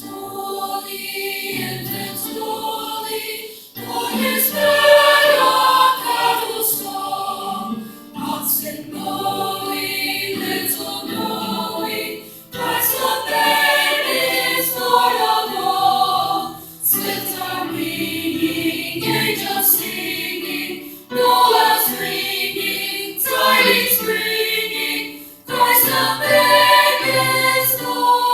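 Junior high school chorus singing a Christmas concert song, in phrases broken by short pauses about every four seconds.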